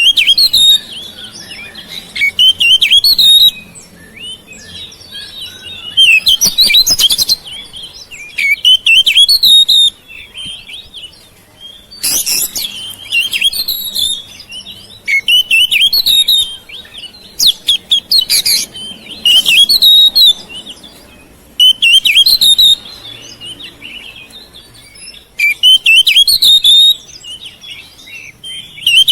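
Oriental magpie-robin (kacer) singing loudly in repeated bouts of fast, varied chirps and whistles mixed with harsh, scratchy notes, with short pauses between bouts.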